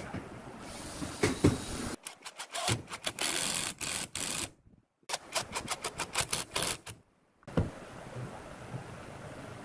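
Cordless impact driver driving screws into a pine cabinet frame, its hammering rattle coming in two bursts about two seconds long, each cut off abruptly. There is a thump near the end.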